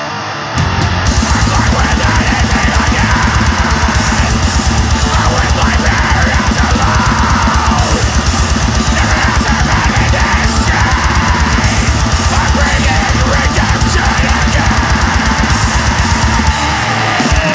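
Grindcore song: heavy distorted electric guitars and bass over rapid, pounding drums.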